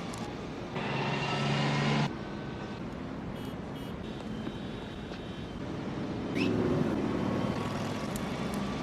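Street traffic noise, with a steady low pitched tone that comes in about a second in and cuts off abruptly a second later.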